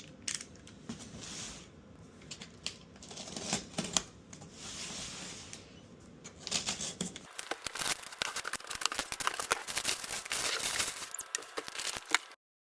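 Packaging being handled and opened: cardboard and tape tearing and wrapping crinkling, with scattered clicks and knocks. About seven seconds in the sound turns abruptly to denser crackling and clicking.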